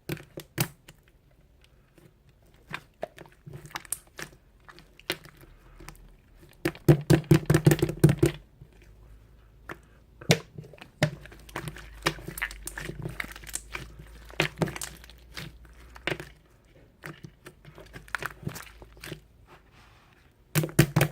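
Slime being squeezed and pressed by hand, making a run of sharp wet clicks and crackles, with a dense, louder flurry of rapid pops about seven seconds in.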